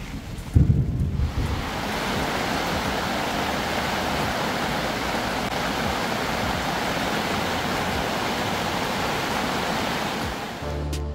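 A short low rumble of thunder about half a second in, then heavy rain falling steadily on a fishing bivvy's fabric roof during a thunderstorm.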